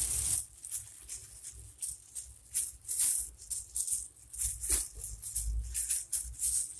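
Rustling and crinkling of a thin plastic food-prep glove while handling food, a run of irregular short crackly ticks, with soft bumps as lemon slices are laid onto the raw chicken and potatoes.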